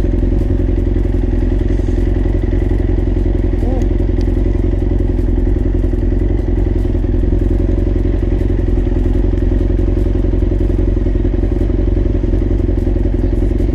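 Sport motorcycle engine idling steadily while the bike stands still.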